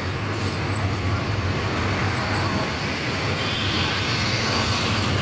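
Steady engine and road noise of a car being driven, with a constant low hum and no sudden events.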